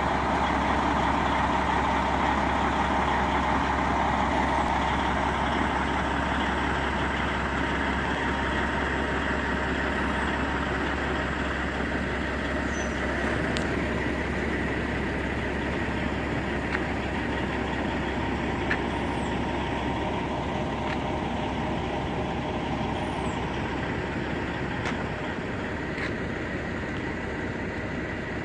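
Steady running of a semi truck's idling diesel engine, slowly getting a little quieter, with a few faint clicks.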